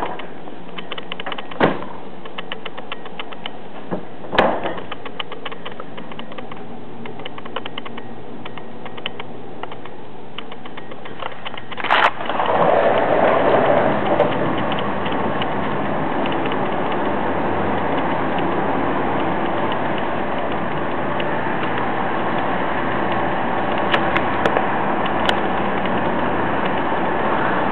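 Sliding glass balcony door being worked along its track: rapid clicking and rattling with a few sharp knocks, then a louder bang about twelve seconds in. After the bang, steady outdoor noise with street traffic fills the rest.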